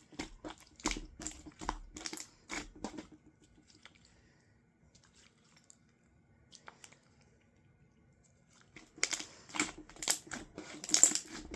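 Slime with gold foil mixed in being squeezed and pressed, giving bursts of crinkling, crackling clicks. The crackling fades for several seconds in the middle, then comes back louder near the end.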